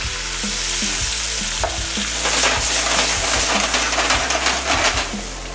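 Shrimp and vegetables sizzling and crackling in a hot wok over a gas flame as they are stir-fried and tossed. The sizzle swells about two seconds in and eases off near the end.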